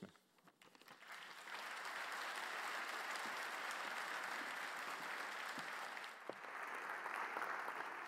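Audience applauding, swelling in about a second in and then holding steady.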